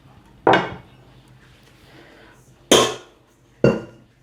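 Three sharp knocks of kitchenware being set down on a countertop, about a second in, then twice close together near the end.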